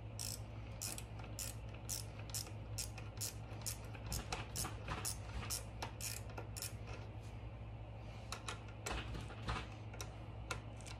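Ratcheting 10 mm wrench clicking as it turns a battery terminal bolt, about three clicks a second for the first six seconds or so, then a few scattered clicks near the end.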